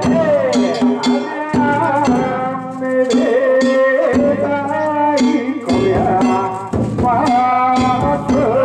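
Danjiri festival music: quick, steady strikes of a drum and a small hand gong under a held, wavering melody line.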